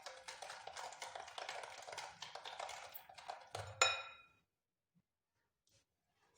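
Kitchen utensils scraping and clattering in a mixing bowl as batter is worked. About four seconds in comes a single sharp clink of glass that rings briefly, and then the sound stops.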